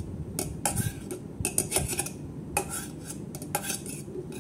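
A metal utensil scraping and clinking against the inside of a stainless-steel electric kettle, scooping out cooked Maggi noodles, in a string of short, irregular scrapes and clinks.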